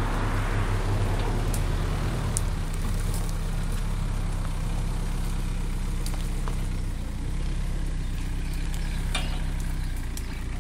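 Pickup truck engine running at low revs, a steady low hum, as it slowly reverses a boat trailer; it eases off a little after the first couple of seconds.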